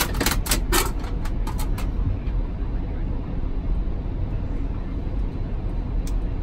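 Steady low rumble inside an Airbus A380 cockpit as the jet taxis, with a few short clicks in the first two seconds and one more near the end.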